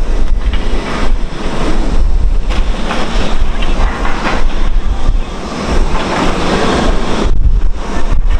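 Wind buffeting the camera microphone: a loud, gusting rumble that eases briefly about five seconds in and again near the end.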